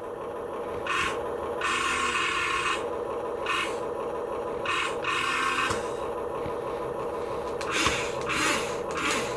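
Small electric gear motors of a 1/24-scale RC Caterpillar construction vehicle whirring in repeated short bursts as its arm is worked, over a steady hum.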